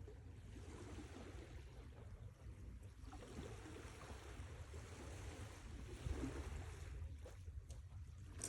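Soft sea waves washing on the shore, a low rumble under a hiss that swells and falls back. A short click sounds right at the end.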